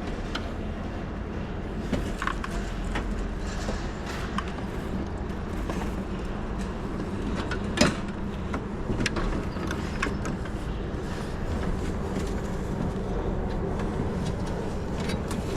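Steady low rumble with scattered light clicks and knocks of parts and tools being handled, and one sharper knock about eight seconds in.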